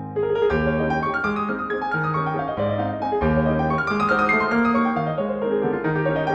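Background piano music: a steady run of notes over a repeating bass line.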